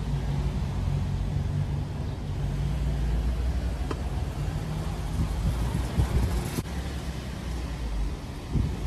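A car driving along a city street: a steady low engine and road rumble, with two brief clicks near the middle.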